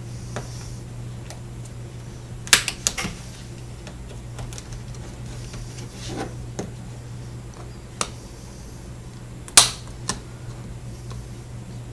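Plastic pick prying apart a smartphone's front and back plastic housings, giving sharp plastic clicks as the housing clips let go: a quick cluster about three seconds in, then single clicks, the loudest just before ten seconds in. A steady low hum runs underneath.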